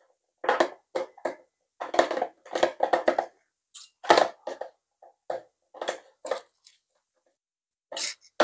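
Two metal forks tossing shredded boiled chicken in a plastic tub: short irregular scrapes and clicks of the forks against the plastic and through the meat, a few each second, with brief pauses.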